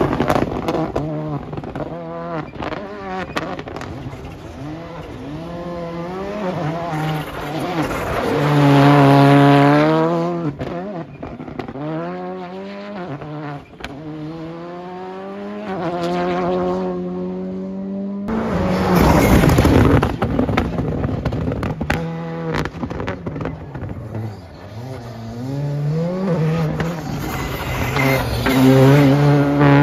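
Rally cars driven hard through tight turns, engines revving with the pitch repeatedly climbing and dropping through gear changes, swelling loudest as each car comes closest. About two-thirds of the way through, a sudden loud rushing noise lasts a couple of seconds.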